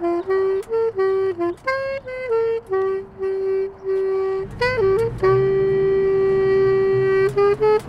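Alto saxophone playing a melody one note at a time, with a long held note in the second half. A low rumble comes in about halfway through and stays under the playing.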